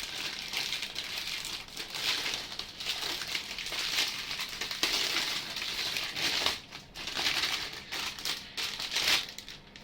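Plastic packaging crinkling and rustling as it is handled, in irregular bursts with a few louder rustles.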